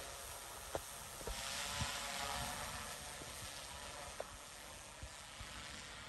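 Quadcopter drone flying overhead: a faint propeller whine over a steady hiss, which swells for a couple of seconds from about a second in, with a few light clicks.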